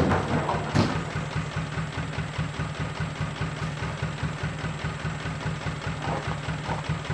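Dump truck's diesel engine idling with a steady low throb, and a single knock about a second in.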